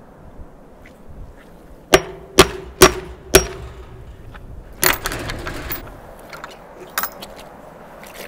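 Metal gate latch clanking against its pin on a wooden garden gate: four sharp knocks with a short ring, about half a second apart, then a louder clatter a second and a half later and a single click near the end.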